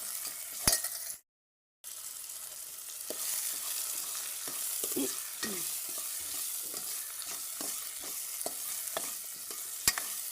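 Tomato and onion masala frying in oil in a pan, a steady sizzle as it is stirred, with a spoon knocking sharply against the pan twice. The sound cuts out completely for about half a second a second in.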